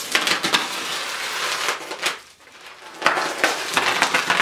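Box cutter slicing through a cardboard box wrapped in layers of packing tape: a scratchy, crackling run of cutting noise that pauses for about a second midway, then starts again.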